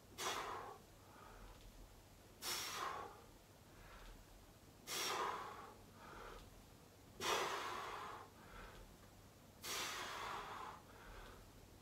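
A man breathing hard in time with slow bodyweight sumo squats. There are five loud breaths about two and a half seconds apart, each followed by a softer one, the breathing of effort as his legs tire.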